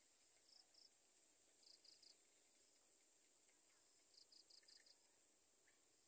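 Faint insect chirping: three short groups of rapid pulsed chirps, first two, then four, then about six, over a steady high-pitched insect hiss.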